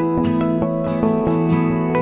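Background music: plucked-string music with a steady run of notes struck over held chords.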